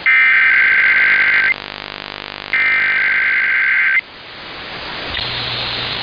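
Emergency Alert System SAME header data bursts: the harsh two-tone digital screech of the encoded alert header, sounding twice for about a second and a half each with a one-second gap. A steady hiss with a low hum starts about five seconds in.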